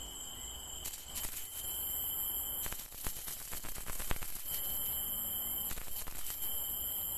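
Bamboo-strip rat call (sun tok) being vibrated, giving a high, shrill squealing in four bursts of about a second each with short gaps between them. This is the lure that imitates a rat's squeal to draw field rats in. A single sharp click falls about four seconds in.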